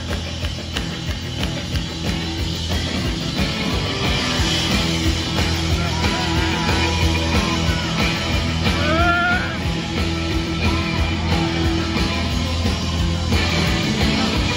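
Post-punk band playing loudly live, with a steady beat, heavy bass and electric guitars, recorded from within the crowd.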